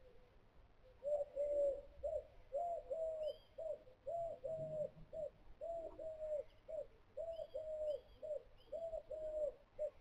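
A dove cooing in a quick, steady series of low short and drawn-out notes, starting about a second in. A few faint, high chirps from a smaller bird come in between the coos.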